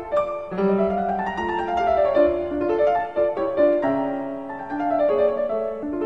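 Piano music: a quick run of notes, several sounding together over a lower line.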